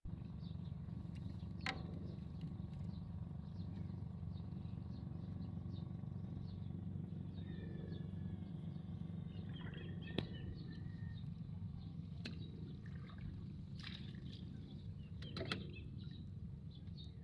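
A motor running steadily with a low, even hum, with a few sharp knocks scattered through it.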